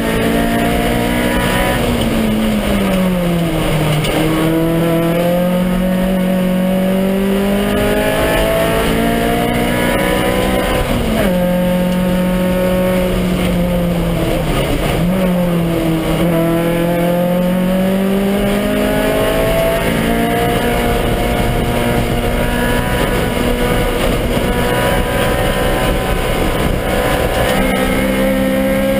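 A Honda Civic rally car's four-cylinder engine running hard, heard from inside the cabin. Its note repeatedly falls and climbs again, with a sudden jump in pitch about eleven seconds in and another a few seconds later.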